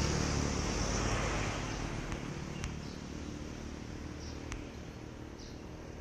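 A passing road vehicle's rumble fading away over the first two seconds, leaving a quiet street background with a few faint clicks and two short high chirps.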